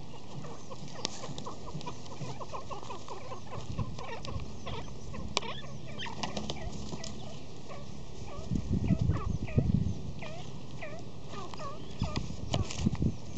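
Grey francolin giving many short, repeated clucking calls, the agitated calls of a bird squaring up to goats. A louder burst of low noise comes about two thirds of the way through.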